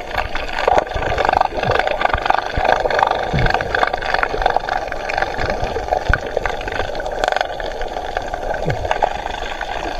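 Underwater sound picked up by a camera in a waterproof housing: a steady muffled rush of water, dotted with many small clicks and knocks.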